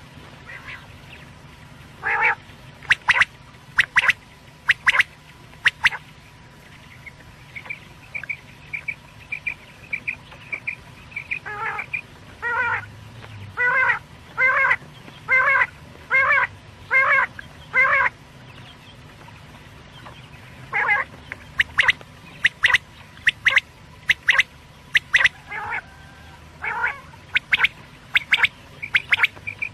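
Quail calling repeatedly: short, sharp calls in runs separated by pauses, including a steady run of about two calls a second.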